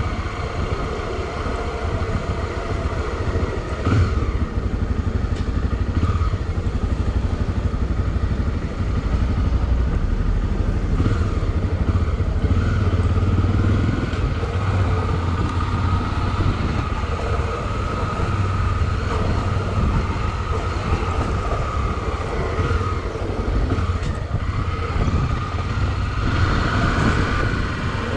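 Motorcycle being ridden along, its engine running with a steady note and the rumble of the ride underneath.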